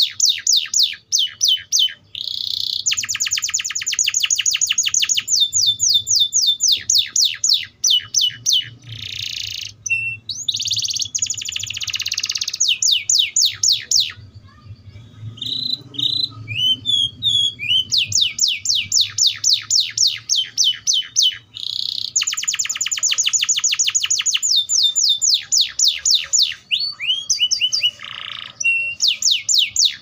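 Canary (Serinus canaria) singing: long rolling trills of fast, evenly repeated falling notes, in phrases broken by short pauses. About halfway through there is a quieter stretch of scattered chirps.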